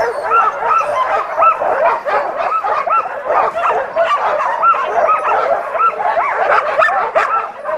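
Many sled dogs barking and yelping at once: a dense, continuous chorus of short overlapping yips and howls.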